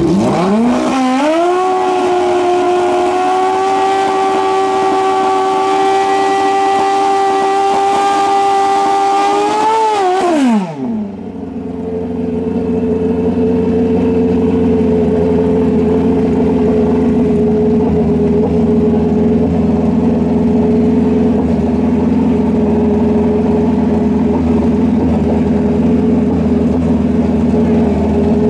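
Drag-racing motorcycle engine revved up within about a second and held at high, steady revs for around nine seconds, then dropping off sharply. A lower, steady engine drone follows.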